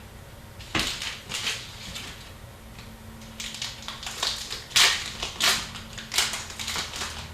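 Hockey trading cards and their packaging being handled, a string of crisp rustles and snaps: a few near one second in, then a busier run in the second half.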